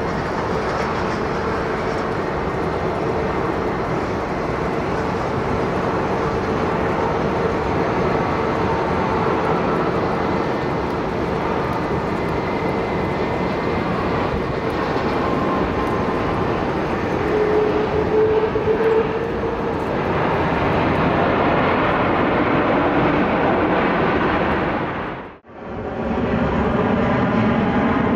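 Air China Airbus A330-300's jet engines on a landing approach: a steady rush of engine noise with a faint whine. It cuts out briefly near the end, and jet noise resumes.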